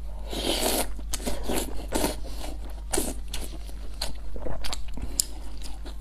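A person eating: chewing and biting food, with quick, irregular mouth sounds several times a second.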